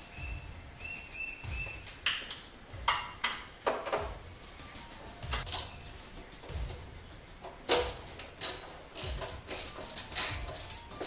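Socket wrench ratcheting and metal parts clinking as the bolts holding an abrasive chop saw's back stop are worked. Scattered sharp clicks and knocks, coming in a quicker run near the end.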